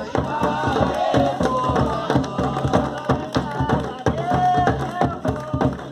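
Batuque folk music: voices singing over dense, fast percussion.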